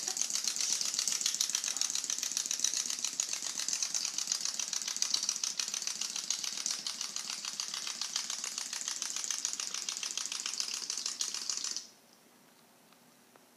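A small furry mechanical toy's gears rattling in a fast, even clicking as it scoots across a tile floor, stopping suddenly near the end when the mechanism runs down.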